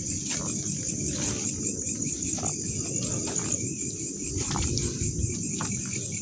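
Crickets chirring in a steady, high-pitched night chorus, with a few soft clicks over it.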